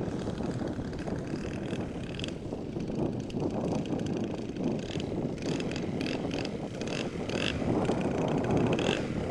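Engine of a large RC MXS aerobatic plane running at low throttle as it lands and rolls out on grass, then taxis toward the listener, growing louder near the end. Wind buffets the microphone.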